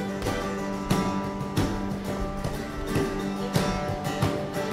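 Acoustic guitars strumming a steady rhythm under a held note: the instrumental intro of a song played by a small acoustic band.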